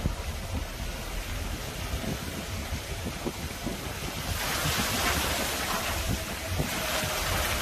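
Wind buffeting the microphone in a steady low rumble, with a louder rushing hiss that comes in about four seconds in.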